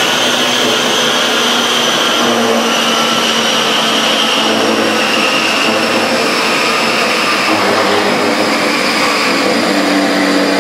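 Steady, loud whooshing drone of a dyno cell's air-moving fans, with a faint high whine drifting slowly lower in pitch.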